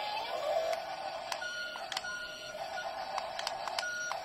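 Small electric gear motors of a toy RC excavator whining as its boom and arm move, the pitch rising and falling. A second, higher whine joins about a second in and stops near the end, with scattered clicks of plastic gears.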